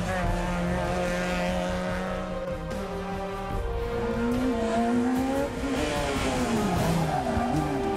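Rally car engines revving hard on a tarmac stage, pitch climbing and dropping again and again through gear changes and lifts. Background music runs underneath.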